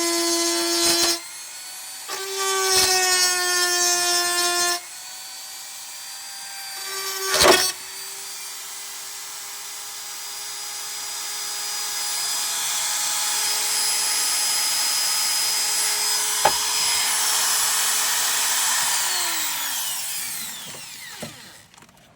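Hand-held electric power tool working on rusty car-body steel, its motor whining in short runs and then one long run, with a hiss of cutting. A sharp crack comes about seven seconds in, and the motor winds down with a falling pitch near the end.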